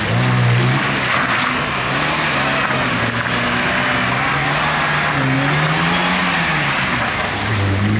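Lada Zhiguli saloon's engine revving up and down repeatedly as the car is driven hard through a slalom course, with tyre noise on wet tarmac.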